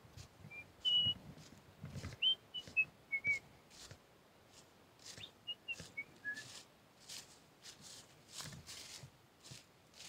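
Footsteps crunching through dry fallen leaves, an irregular crackle of steps throughout. In the first few seconds, and again briefly around the middle, a few short high whistled notes sound over the steps.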